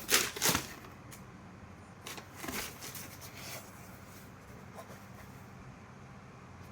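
Rustling and scraping handling noises from a pair of shoes and their packaging being unboxed. The handling is loudest in the first half second and again about two to three and a half seconds in, and quieter after that.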